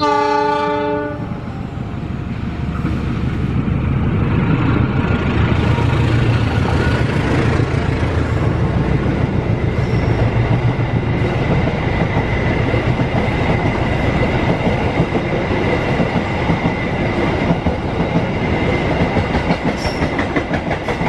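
KA Lodaya diesel-hauled passenger train sounding one horn blast of about a second as it approaches, then passing close by: first the locomotive's low rumble, then the coaches rolling past with a fast clickety-clack of wheels over rail joints and a steady high ring over the clatter.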